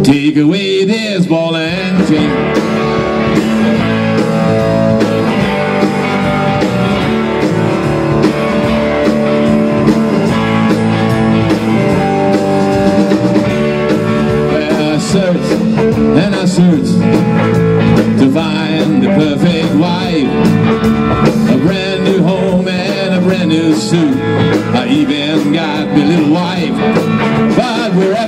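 A rock band playing live: two electric guitars, a Les Paul-style and a Telecaster-style, over a Tama drum kit, in a blues-rock groove. The music runs loud without a break.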